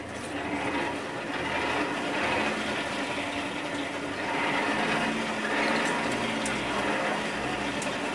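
Air being driven into a coal forge fire by its hand-worked blower, a steady rushing whoosh with a low hum under it.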